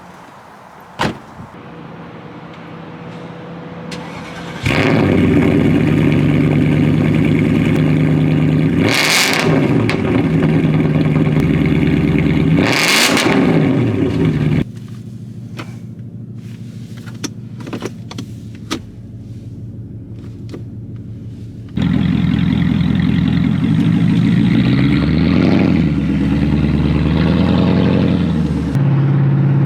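2006 Porsche Cayenne S's 4.5-litre V8 running with its muffler removed, going loud about five seconds in and revving twice, pitch rising and falling. A quieter middle stretch has scattered exhaust crackles and pops. It then runs loud again with another rev near the end.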